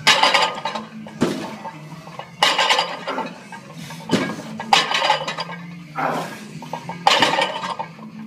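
Barbell weight plates clanking and rattling on the bar as a deadlift is lowered to the floor and pulled again, about six sharp metallic clanks a second or two apart, each ringing briefly.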